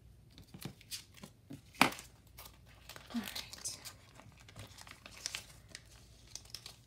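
Clear plastic stamp packaging crinkling, with light clicks and taps as red rubber stamps are pulled out of the sleeve and handled; one sharper click comes about two seconds in.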